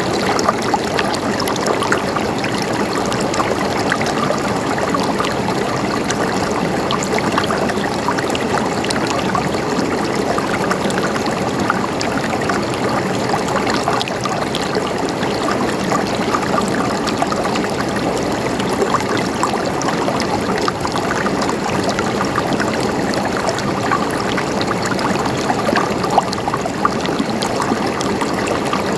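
Water flowing and trickling steadily over rocks in a stream, a continuous gurgle flecked with small splashes.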